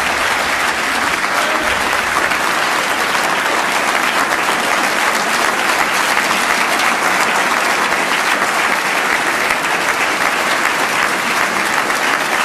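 Large audience applauding, dense clapping that holds steady throughout.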